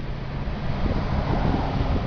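Diesel engine of a military Unimog truck running as it drives past, a steady low rumble, with wind buffeting the microphone.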